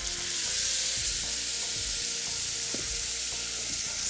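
Sauce poured through a fine strainer into a hot pan around a pan-fried fish fillet, sizzling steadily as it hits the hot pan.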